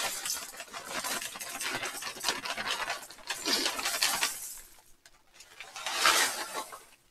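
Dry cereal pouring from a large bag into a bowl: a dense pattering rattle with the bag crinkling for about four and a half seconds, then a shorter second burst about six seconds in.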